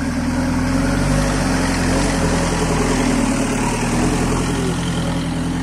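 Mahindra jeep engine running steadily at low revs as the jeep crawls close past over a muddy dirt track.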